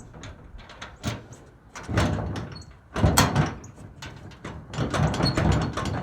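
Truck toolbox lid and latch being worked: a series of clunks, knocks and latch clicks, the loudest about three seconds in, with a rattling cluster of clicks near the end.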